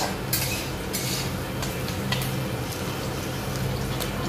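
Metal spatula scraping and stirring in a steel wok as sliced onions, chillies and vegetables fry in oil, with irregular scrapes over a light sizzle. A steady low hum runs underneath.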